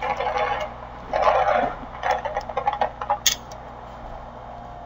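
Multi-storey office building collapsing in an explosive demolition: irregular bursts of crashing and crackling debris, heard thin through the microphone, dying down about three seconds in.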